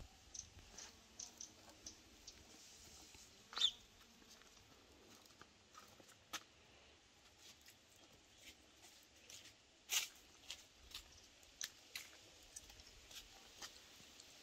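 Faint, scattered crackles and pops over a low hiss from a wood fire burning under a large pan of stuffed peppers as oil is poured over them, with the sharpest pops about three and a half seconds and ten seconds in.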